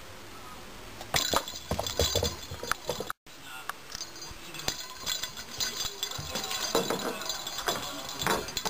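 A small ball with a bell inside jingling and clinking in irregular bursts as a kitten bats and chases it, with light knocks of the ball. A brief dropout about three seconds in.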